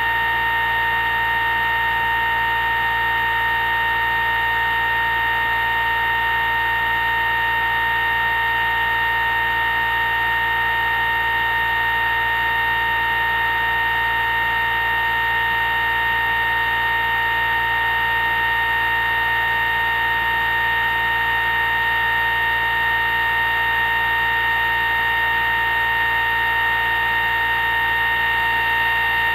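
Homemade pulse motor running steadily on 12 volts, its pulsed drive coils giving off a continuous high-pitched electrical whine made of several pure tones, with a low hum under it.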